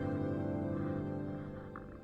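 Background music: sustained instrumental notes fading away.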